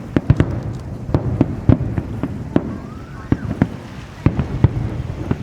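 Aerial fireworks bursting in quick, irregular succession: a dozen or more sharp bangs and cracks over a continuous low rumble of the display.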